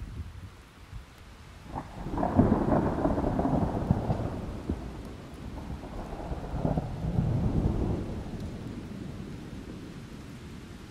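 Rain falling, with a long rolling rumble of thunder that builds about two seconds in and dies away over the next several seconds.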